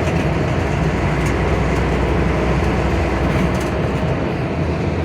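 Volvo B10M bus's six-cylinder diesel engine running steadily as the bus drives, a continuous low rumble mixed with road and body noise, heard from on board.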